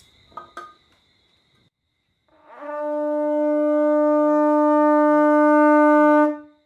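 Conch shell trumpet blown in one long, steady blast of about four seconds, starting a couple of seconds in with a short upward slide into the note, swelling slightly, then cutting off sharply.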